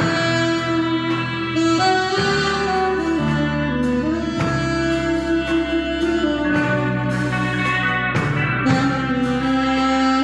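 Live band instrumental: saxophone playing long held notes over electric guitar accompaniment.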